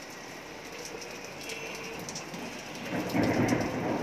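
Steady rain with scattered drip ticks; about three seconds in, a low roll of thunder swells up and becomes the loudest sound.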